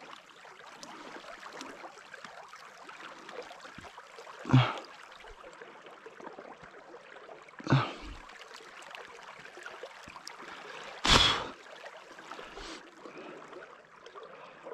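A creek's water running steadily, with three short, loud sounds about three seconds apart, the last a little longer.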